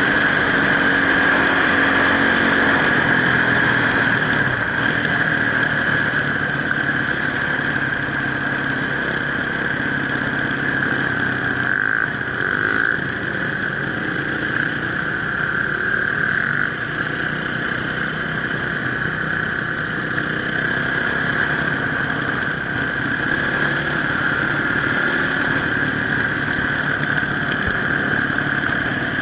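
Enduro motorcycle engine running steadily at fairly constant revs.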